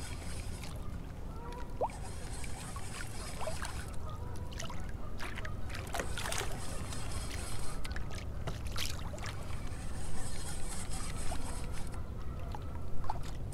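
Water sloshing and lapping against a kayak hull over a steady low rumble, with scattered splashes and knocks, as a hooked catfish is reeled in at the surface toward the boat.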